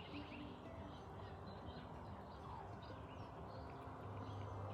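Faint background of small birds chirping, with many short high calls and one falling call about halfway through, over a low steady hum.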